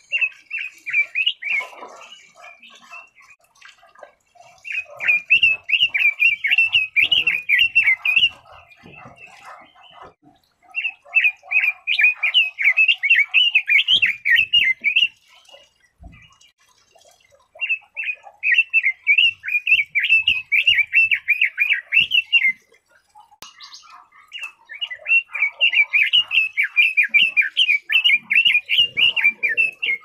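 Red-billed leiothrix singing: five bouts of rapid, quick-changing notes, each a few seconds long, separated by short pauses.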